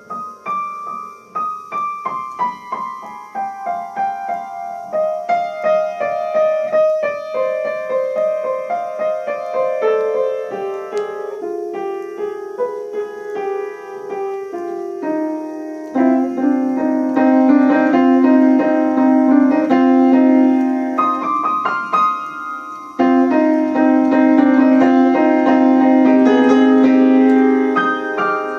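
Piano music at a slowed-down tempo. A long run of quick notes steps gradually downward, then from about halfway loud sustained chords ring out, broken by a short gap and repeated near the end.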